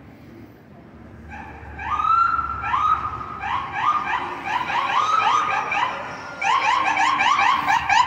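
Car alarm going off, starting about a second in. It steps through its tone patterns: longer repeated notes first, then quicker chirps, and a faster warble near the end.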